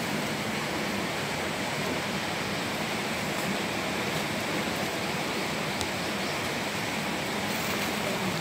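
Steady, even rushing noise that neither rises nor falls, with no distinct events in it.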